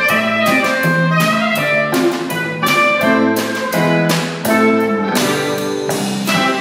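Klezmer band playing live: clarinet, acoustic guitar, bass guitar and drum kit.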